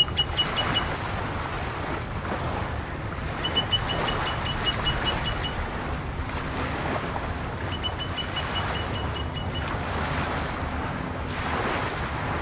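Outdoor ambience: a steady rumbling wash that swells every few seconds. Three times it is overlaid by a short run of rapid, evenly spaced high pips, and a faint low hum joins about halfway through.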